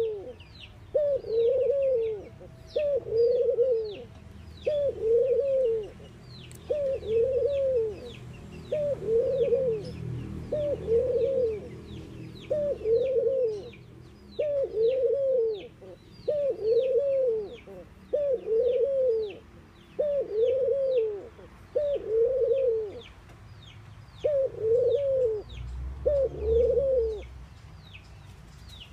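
A collared dove cooing over and over, about fifteen arched coos spaced a second or two apart that stop shortly before the end. Faint, high, quick downward chirps from a smaller bird repeat in the background.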